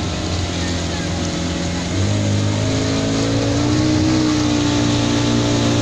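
Pontoon boat's motor running steadily, heard from on board. About two seconds in it picks up, getting louder, with its pitch rising slightly.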